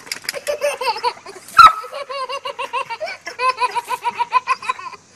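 Toddler laughing in quick runs of short, high-pitched 'ha' bursts. A single sharp knock about a second and a half in is the loudest sound.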